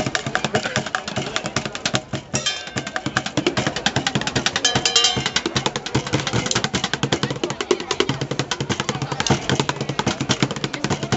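Street drumming on plastic buckets: a fast run of rapid strikes, with a brief break a little over two seconds in.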